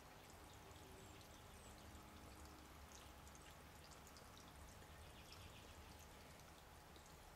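Near silence: a low steady background hum, with short, faint, high, thin bird calls scattered through it.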